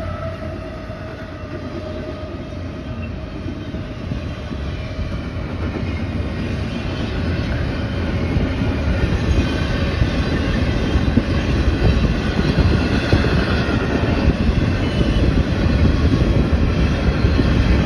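CSX intermodal freight train passing close by: double-stack container cars rolling past, wheels clattering over the rails, the rumble getting steadily louder.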